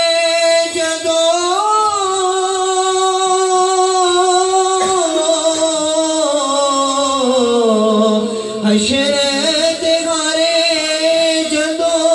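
A man's unaccompanied voice singing a Punjabi devotional naat in long, drawn-out held notes. The line slides slowly down in pitch from about five seconds in, and a new phrase begins near the end.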